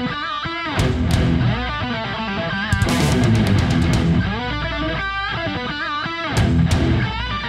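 Intro music led by electric guitar, its lead notes bending and wavering in pitch over a heavy low end.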